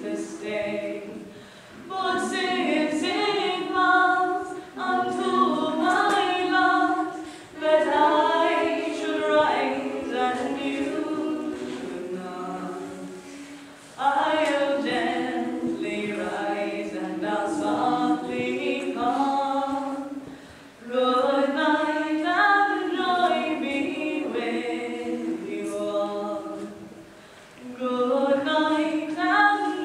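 Choir of young women singing a cappella in several-part harmony. They sing in phrases of a few seconds, with the sound dropping briefly between phrases and coming back in together.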